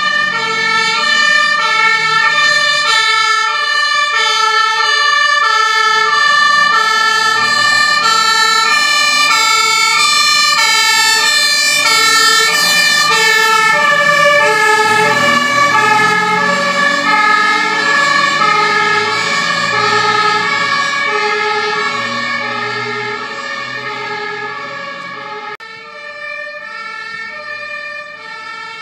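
German emergency-vehicle two-tone sirens (Martinshorn) sounding continuously, with more than one horn overlapping at different pitches. A fire engine's engine rumble comes through as it passes in the middle, and the sirens grow fainter over the last several seconds.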